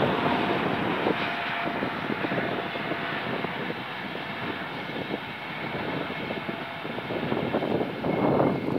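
Passenger train coaches rolling past at speed, a steady rumble from the wheels on the rails. It swells near the end with gusts of wind on the microphone.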